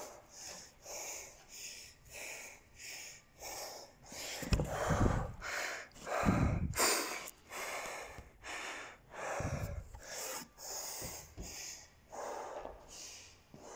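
Fast, heavy breathing of a worn-out athlete getting his breath back after an all-out workout, about three breaths every two seconds. A few low bumps partway through come from the phone being handled.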